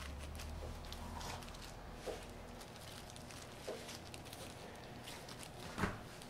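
Soft handling sounds of gloved hands laying gimbap fillings onto rice and seaweed on a plastic cutting board, with three light knocks spread through, the last and loudest near the end. A low hum runs under the first couple of seconds, then stops.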